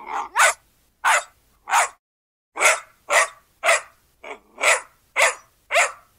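A dog barking: about ten short, sharp barks, three in a row, then after a brief pause seven more at a steady pace.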